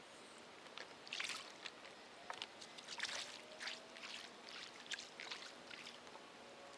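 Water splashing and trickling beside a kayak: a string of short, irregular splashes over a faint steady background.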